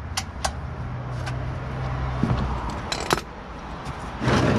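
Ratchet and socket clinking on the 4Runner's oil drain plug as it is loosened: a few sharp metal clicks, then a louder rattle near the end. A steady low hum runs underneath.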